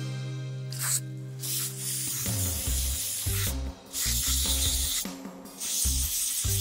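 Aerosol spray can hissing through its red nozzle straw into the bottom roller channel of a sliding door: a short burst about a second in, then a long spray broken by two brief pauses. Background music plays underneath.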